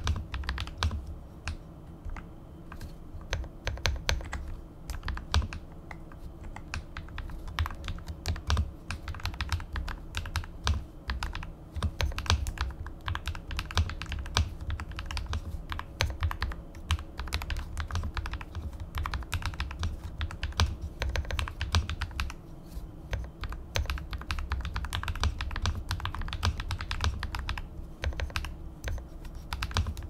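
Typing on a Vortex PC66 mechanical keyboard with lubed KTT Red Wine linear switches: a fast, continuous stream of deep, muted 'thock' keystrokes.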